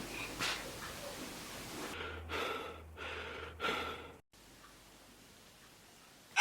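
A cat's short breathy nasal bursts, three of them about two to four seconds in, typical of a cat sneezing or clearing its nose. After that only a faint hiss remains.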